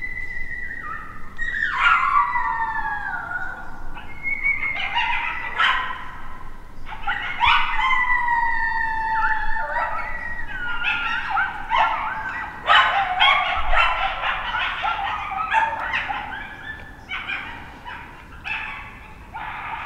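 Coyote howls and yips: long cries sliding down in pitch, then a busy run of yips and whines from about ten seconds in, fading toward the end.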